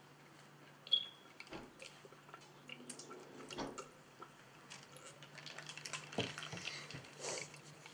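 A child drinking from a plastic cup in gulps, with small wet liquid sounds, a brief squeak about a second in and a few soft knocks.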